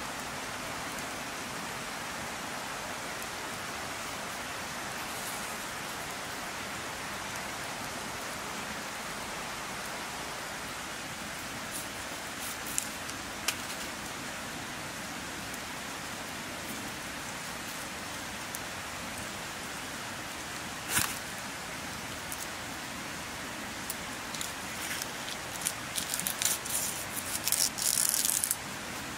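A steady rushing hiss, with a few sharp clicks, then a run of crisp crackling near the end as the dry, papery skin is peeled off a white onion.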